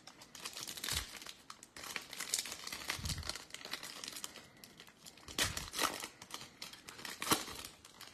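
Foil wrapper of a Topps Holiday baseball card pack being torn open and crinkled by hand: a run of sharp crackles and rips, a few louder than the rest.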